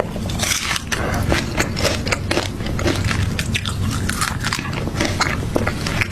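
Close-miked biting and chewing of crunchy food, a dense run of crisp crackles and crunches.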